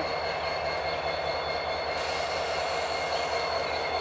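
Two EMD SD70M-2 diesel-electric locomotives, each with a 16-cylinder two-stroke EMD 710 engine, running steadily as they lead a freight train past, a steady rumble with a faint steady high whine over it.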